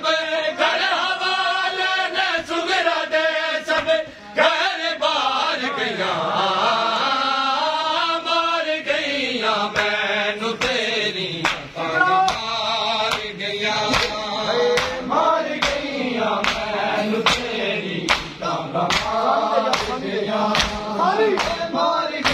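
Men's voices chanting a noha, a Shia mourning lament, in a steady unison melody. About halfway through, rhythmic chest-beating (matam) slaps join in, about three every two seconds, keeping time with the chant.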